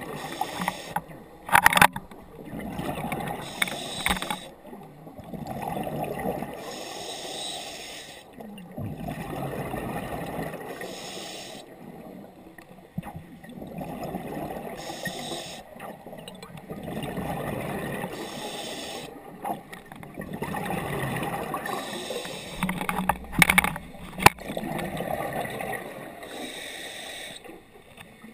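Scuba diver breathing through a regulator underwater: a short hiss on each inhale, then a longer bubbling rush on each exhale, repeating about every four seconds. A few sharp clicks come through, the loudest about two seconds in and again near the end.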